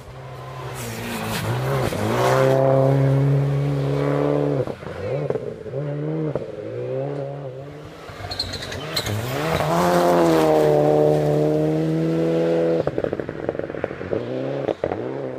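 Rally car engine revving hard on a gravel stage, pitch climbing and dropping through several quick gear changes, then held high for a few seconds. Sharp crackling comes near the end as the car lifts off.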